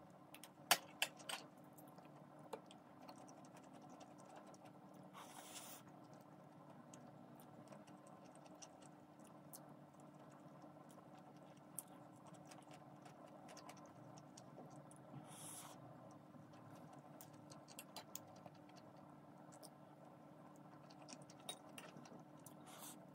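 Quiet room with a faint steady hum, broken by a few sharp clicks of metal utensils against ceramic bowls and the table, a quick cluster of them about a second in, and by two short hisses.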